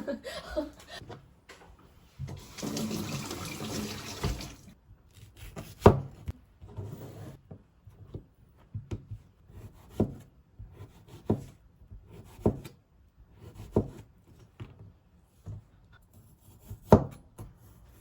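Water running from a tap for about two seconds, then a slow series of sharp knocks, roughly one every second and a bit.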